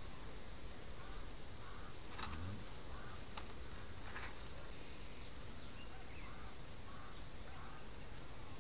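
Birds chirping repeatedly over a steady high hiss, with three sharp clicks between about two and four and a half seconds in, from a knife cutting through green banana peel.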